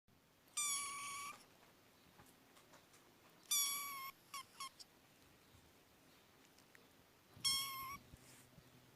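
A cat meowing three times, high-pitched and fairly steady in pitch, with two short chirps right after the second meow.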